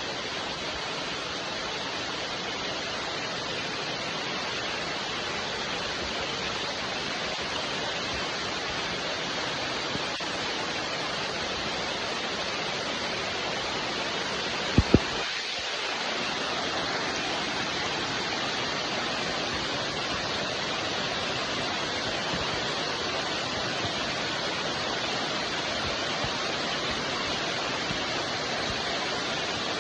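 Steady rain falling, an even hiss without pause. About halfway through, two sharp clicks in quick succession, followed by a brief dip in the rain sound.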